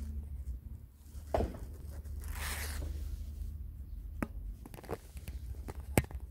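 Handling noise from a phone held inside a cleaned diesel particulate filter's pipe: a few sharp clicks and scrapes and a brief rustling swish about two seconds in, over a low steady hum. The loudest click comes near the end.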